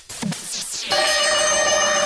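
Intro music: falling electronic sweeps, then about a second in a loud, sustained chord of steady tones.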